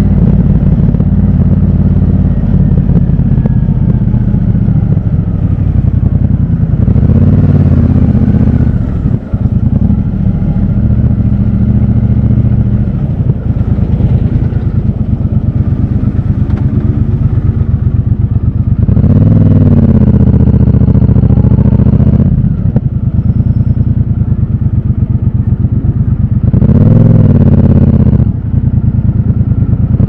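Triumph Bobber's 1200 cc parallel-twin engine running in city traffic, with the throttle opened three times, about a quarter of the way in, around two-thirds and near the end. Each rise and fall in revs ends with a brief drop in sound.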